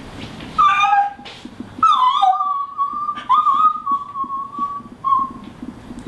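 A woman imitating a dog: a couple of short yelps, then a long, high, wavering howl lasting about three seconds with a break in the middle, ending in a short whimper.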